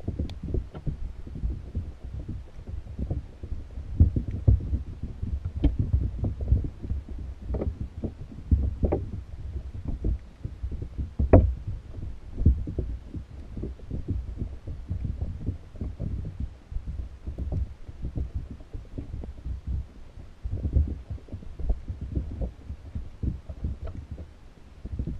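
Muffled underwater sound from a GoPro inside a submerged pinfish trap: irregular low thumps and rumbles of moving water, with sharper clicks now and then, the loudest about eleven seconds in.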